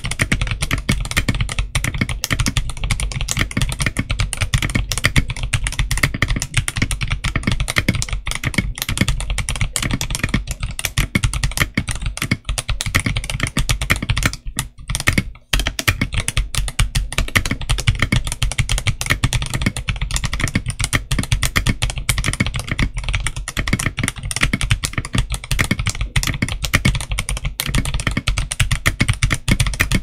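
Continuous fast typing on a stock Machenike K500F mechanical keyboard with translucent polycarbonate OEM-profile keycaps: a dense stream of key strokes, with a brief pause about halfway through.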